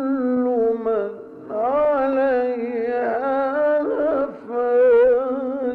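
A man's voice reciting the Quran in the melodic mujawwad style, drawing out long ornamented notes that waver and slide in pitch. It is an old recording, thin, with no sound above the upper middle range.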